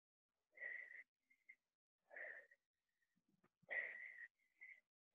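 A woman's hard breathing during exercise: three faint, short, forceful breaths about a second and a half apart.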